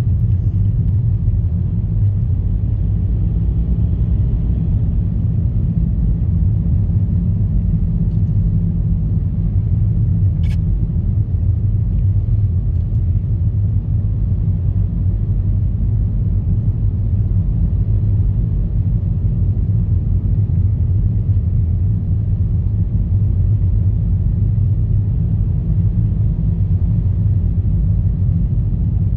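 Steady low rumble of a car driving on a snow-covered highway, with tyre and engine noise heard from inside the cabin. A single short click about ten seconds in.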